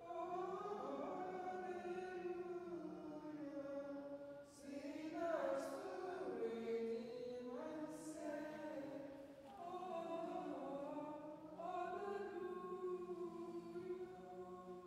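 A hymn sung by a group of voices, in long held phrases with short breaks between them.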